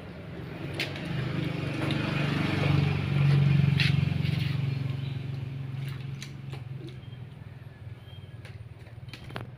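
Engine of a passing motor vehicle, a low hum that swells, peaks a few seconds in and fades away, with a few light clicks and knocks over it.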